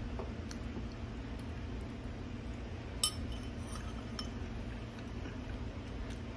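Metal fork clinking against a ceramic bowl of macaroni: one sharp clink about three seconds in and a few lighter taps.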